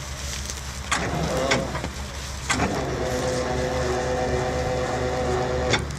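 Rocket launcher vehicle's engine running steadily underneath. Metallic clicks come about one second and two and a half seconds in. After the second click a steady motor whine sets in and stops with a click near the end.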